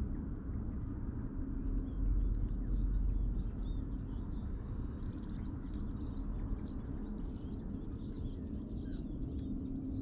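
Small songbirds at a winter ground feeder chirping and calling in quick, short notes, over a steady low rumble that swells for a second or so about two seconds in.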